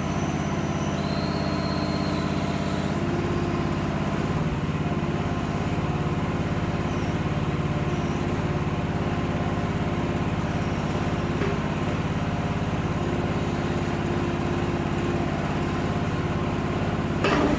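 A micro mini excavator's 14 hp Briggs & Stratton engine running steadily.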